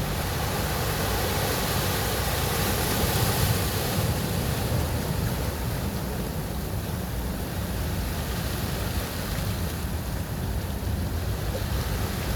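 Ocean surf breaking and washing on a beach: a continuous roar of water with a deep low rumble, swelling slightly around three seconds in.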